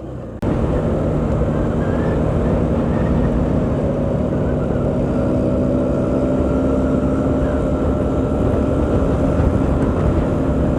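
Motorcycle riding at a steady speed: the engine hums evenly under a loud, constant rush of road and wind noise. It cuts in suddenly about half a second in.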